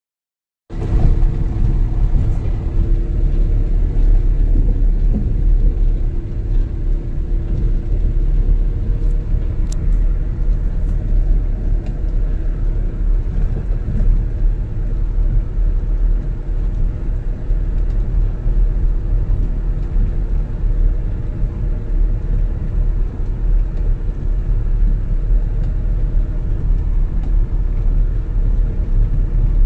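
Motor vehicle driving along an unpaved dirt road: a steady low rumble of engine and road noise that cuts in abruptly about a second in.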